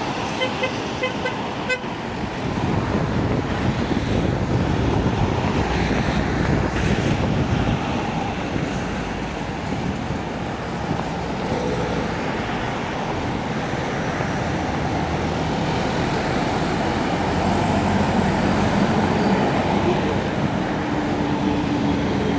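Steady road traffic noise, with a quick run of short high beeps in the first two seconds.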